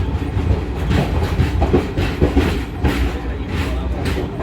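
Tata–Yesvantpur Express passenger train rolling along the track: a steady low rumble with repeated wheel clacks over the rail joints.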